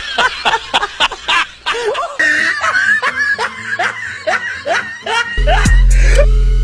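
Rapid, rhythmic laughter: a string of short ha-ha syllables, about five a second, from a comedy laugh sound effect. About five seconds in, loud music with deep bass and drum hits comes in.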